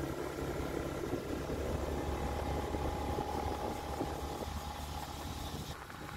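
Motorbike engine running steadily with road noise as the bike rides along; a faint steady whine joins about two seconds in.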